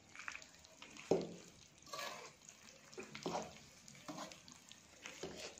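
Steel spatula stirring and scraping a thick mix of roasted ground moong dal and ghee in a steel kadhai: about five scrapes and knocks roughly a second apart, the first one the loudest.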